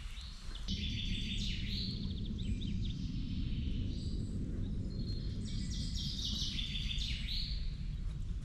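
A songbird singing two runs of quick whistled and trilled phrases over a steady low rush that sets in just under a second in.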